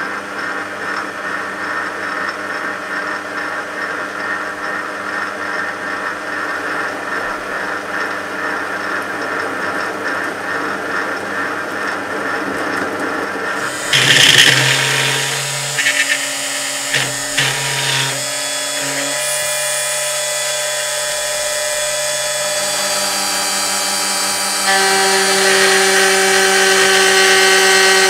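Small metal lathe running while a cutting tool turns down a steel shaft, with a steady motor whine and cutting noise. About halfway through the sound changes, with a brief loud burst and a few short ones, then a steadier whine that gets louder near the end.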